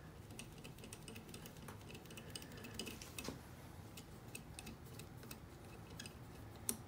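Faint, irregular light clicks and taps of small metal parts being handled while fitting a minibike's brake cable and return spring, with a sharper click near the end.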